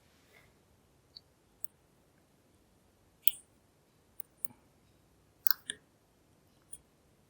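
Pick and tension tool working in a NEMEF NF4 dimple lock. About eight small, sharp metallic clicks come at uneven intervals, loudest about three seconds in and again near five and a half seconds, as pins are lifted and set.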